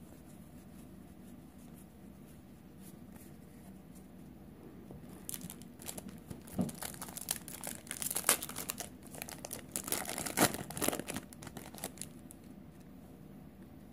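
Foil wrapper of a Magic: The Gathering Ikoria booster pack being torn open and crinkled by hand: a dense run of sharp crackles and tearing that starts about five seconds in and stops about two seconds before the end.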